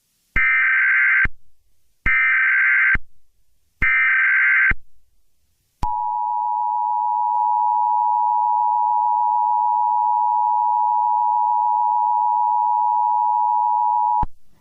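Emergency Alert System tones: three one-second bursts of the SAME digital header, then the two-tone EAS attention signal held steady for about eight seconds, cutting off just before the end.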